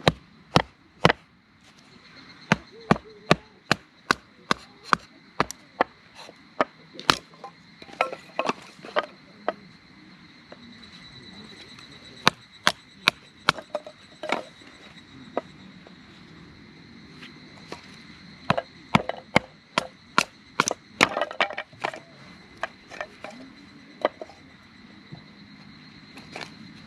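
Repeated sharp knocks, about two a second at first, then irregular with clusters of quicker strikes, over a steady high insect buzz.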